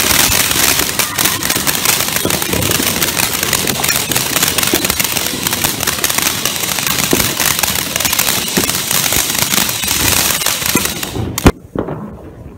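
Ground firework fountain spraying sparks with a loud steady hiss and dense rapid crackling, which stops abruptly about eleven seconds in. A single sharp bang follows, the loudest sound of all.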